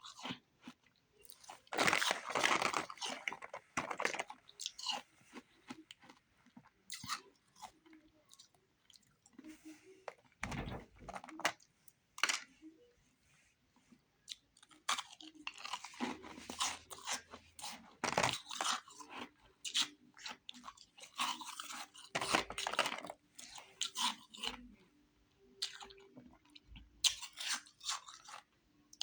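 Close-up crunching and chewing of refrozen powdery ice: bites into brittle ice sticks and rings, then irregular runs of grinding crunches between the teeth, with short quieter pauses between mouthfuls.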